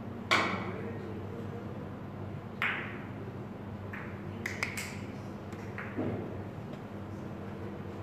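Three-cushion carom billiards shot: the cue tip strikes the cue ball with a sharp click about a third of a second in, the loudest sound, followed by further clicks and knocks as the balls hit each other and the cushions, including a quick cluster a little past the middle. The shot scores a point.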